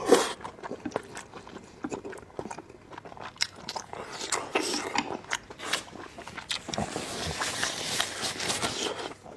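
Close-up eating sounds of a person biting and chewing spicy beef intestine rice noodles: a run of short wet smacks and clicks, the loudest right at the start, with a longer noisy stretch from about seven seconds in.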